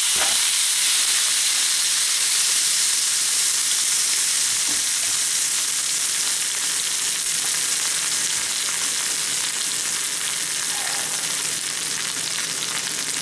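Juices and fat sizzling in a cast iron skillet holding a turkey fresh out of a 500 °F oven: a steady sizzle that slowly fades as the pan begins to cool.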